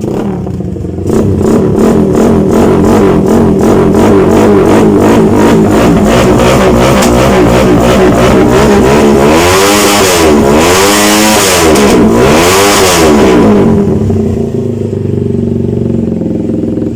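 Motorstar Z200S motorcycle engine revved through an Austin Racing aftermarket exhaust canister with a resonator: it comes off idle about a second in and runs loud at raised revs, then is blipped up and down three times in quick succession before dropping back to idle near the end.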